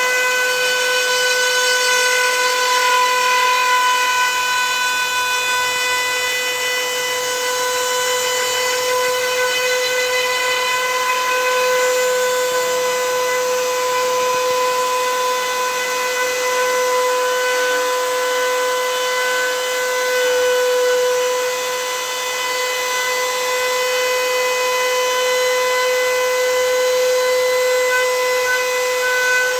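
Router spindle on a homemade CNC machine running at a steady high whine as its bit mills a pass along a walnut log, with the rushing noise of the cut underneath. The level dips slightly a little past two-thirds through.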